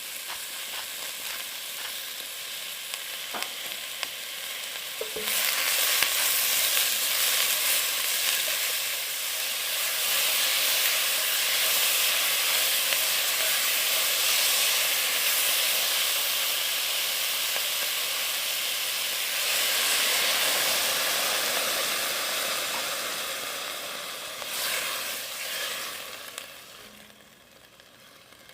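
Food frying in oil in a pan, a steady sizzle. The sizzle jumps sharply louder about five seconds in and dies away near the end.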